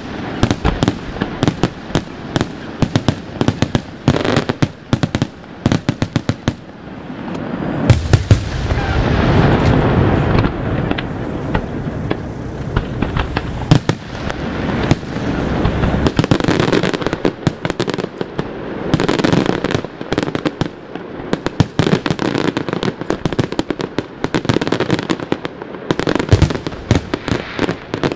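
Aerial fireworks shells bursting in a rapid barrage of sharp reports. About eight seconds in, many bursts overlap into a dense, deep rumble, and this happens again from about sixteen to twenty seconds.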